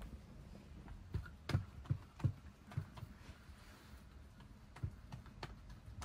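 A series of irregular knocks and clicks, some with a dull thud, bunched together between about one and two and a half seconds in, with a couple more near the end.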